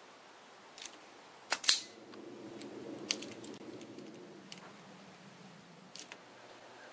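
Sharp clicks and snaps of a hand wire stripper working on tail-light wires, the loudest pair about a second and a half in, with single clicks before and after. A faint low hum sits under the middle few seconds.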